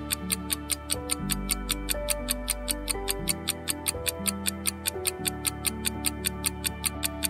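Countdown timer sound effect: quick, evenly spaced ticks, several a second, over sustained background music whose chords change every second or two.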